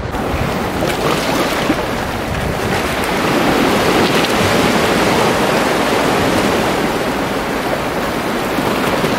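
Sea surf washing against a rocky shore, a steady rush of water that swells up in the middle and eases off again.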